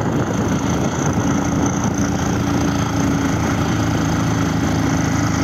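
Small Chinese dual-sport motorcycle's engine running steadily as the bike rides along under way.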